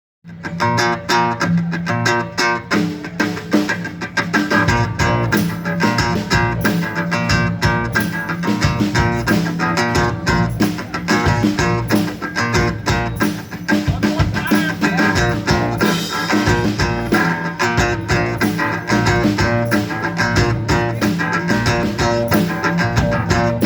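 Band playing a song's instrumental intro, led by guitar over bass and a steady beat, before the vocals come in. The low end fills out a few seconds in.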